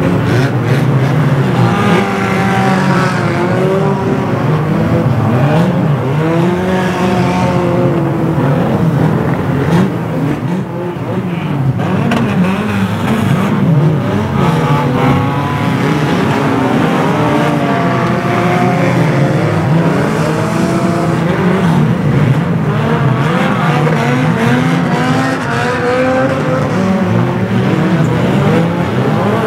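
Several banger racing car engines revving up and down at once, their rising and falling notes overlapping in a loud, continuous din.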